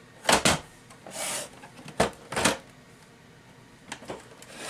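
Plastic lid of a Zebra ZD500 label printer being opened and snapped shut, with sharp latching clicks and a brief scrape; the lid is being worked to show the screen cutting out from a loose cable.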